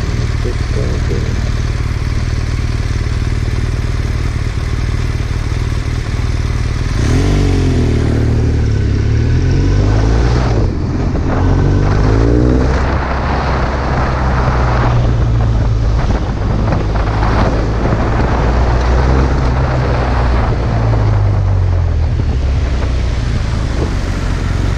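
BMW R1200R LC's liquid-cooled boxer twin running steadily at low revs, then pulling away about seven seconds in, its note rising and dropping as it revs up through the gears. After that it runs steadily at city speed, with wind noise on the microphone.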